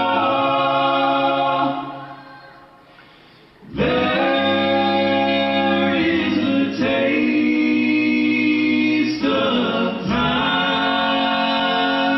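Male a cappella group singing close-harmony chords over a deep bass voice, with no beatboxing. A held chord fades away about two seconds in, and after a short hush the full group comes back in with sustained chords about four seconds in.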